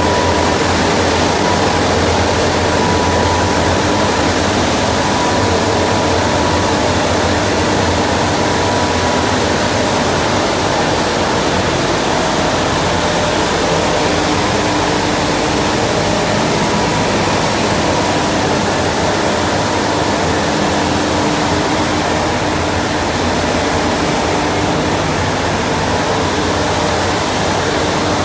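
Road-rail tunnel cleaning vehicle at work: its machinery and high-pressure water cleaning system running in a steady, loud noise of rushing spray over a low hum, with a faint steady whine.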